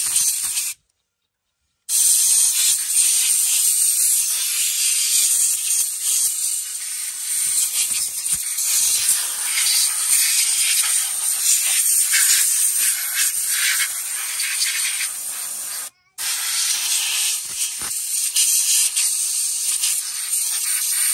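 Steady, loud hissing noise with irregular scratchy rubbing through it. It cuts out to silence twice: briefly about a second in, and again for a moment about three-quarters of the way through.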